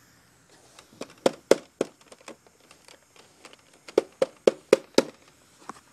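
Sharp clicks and taps from the casing of an under-cabinet LCD TV/DVD player being handled, about a dozen in all, with a quick run of about four a second near the end. The unit is being worked over to find a bad connection behind its flickering screen.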